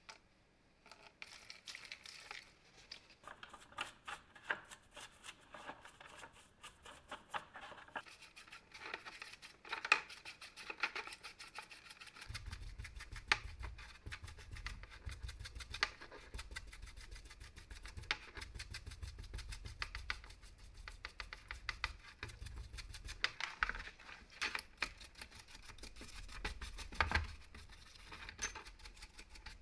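Water poured into a plastic tub of cordless-drill gearbox parts, then a small bristle brush scrubbing the wet metal gears and plastic gear housing: a dense run of short, irregular scratchy strokes.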